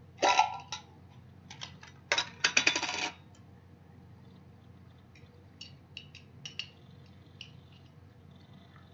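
Cutlery clinking and scraping against a dish while eating: a short clatter just after the start, a quick run of rapid clinks about two seconds in, then a few light taps.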